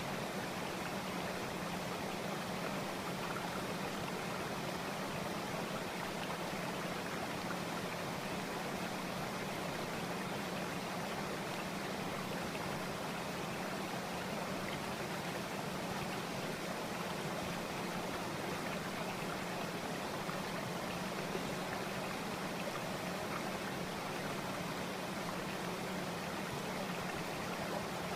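Steady, unchanging rushing noise like flowing water or a stream, even in level throughout.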